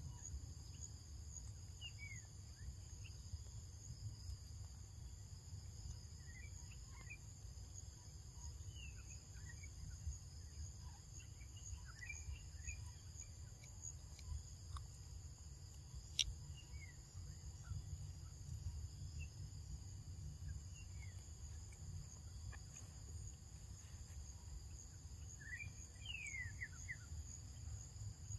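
Steady forest insect chorus, a continuous high-pitched cricket-like drone, with scattered short falling bird chirps, a few together near the end. A single sharp click about halfway through and a low rumble underneath.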